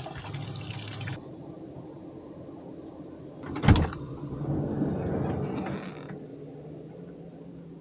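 A sink tap runs water into a basin and stops about a second in. A steady low hum from a small motor carries on, broken by a single sharp knock and a couple of seconds of rustling.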